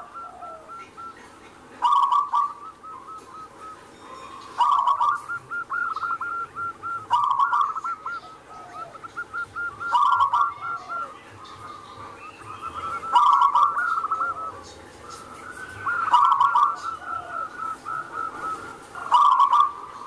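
Zebra dove (perkutut) singing its cooing song over and over, seven phrases about three seconds apart. Each phrase opens with a loud note and runs on into a quick string of rolling notes.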